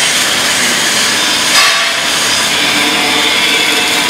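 KEENSAW GZK4240 double-column automatic metal-cutting bandsaw running, a steady harsh hiss of its blade working, briefly louder about a second and a half in.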